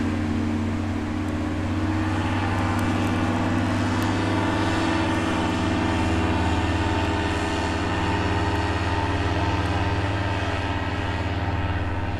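Paramotor engine and propeller of a powered paraglider running steadily in flight overhead.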